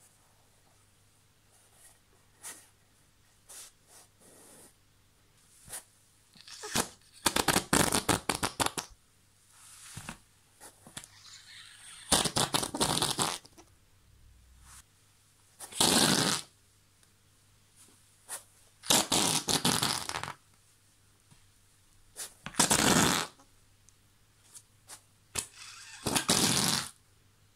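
Salmon-pink rubber whoopee cushion squashed again and again, under a person sitting on it and under pressing hands, giving a series of about six fart noises. Some are long and rapidly fluttering, others short, with softer rubbery handling sounds at the start.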